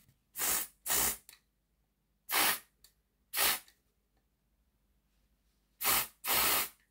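Aerosol spray can with a straw nozzle giving six short squirts of hiss onto a small model locomotive part. The last two squirts come back to back near the end.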